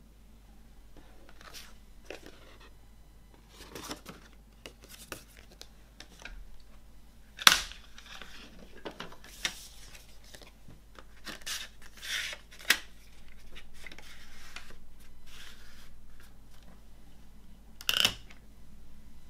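Paper rustling and sliding on a wooden tabletop, and a few sharp clicks from a plastic CD jewel case being opened and handled. The loudest click comes a little before halfway, and another comes near the end as the disc is pressed at its hub.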